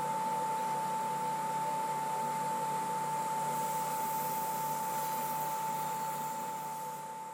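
Powermatic table saw running without cutting: a steady machine hum with a high, even whine. It begins to fade out near the end.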